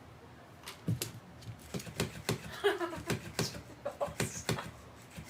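Irregular quick taps and knocks, several a second, starting under a second in: a battery-powered moving fish cat toy flapping against the floor while being played with. A few short voice-like sounds come in between the taps.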